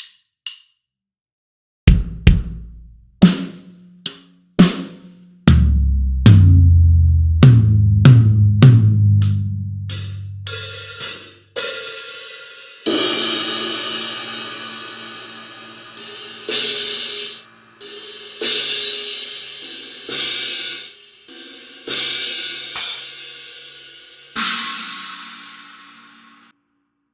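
Sampled drum kit from the Blasting Room Signature Series Drums Kontakt library, auditioned as separate hits: low drum hits first, including a run stepping down in pitch like toms, then a series of cymbal crashes that ring out and fade near the end.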